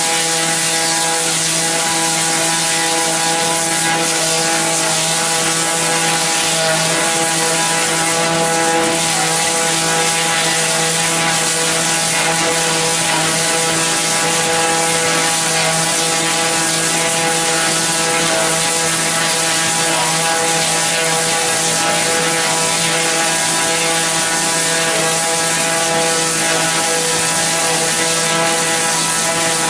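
Log knot-removing debarking machine (Powermax ELP30) running steadily: a constant motor hum with a dense, even hiss of noise over it, unchanging throughout.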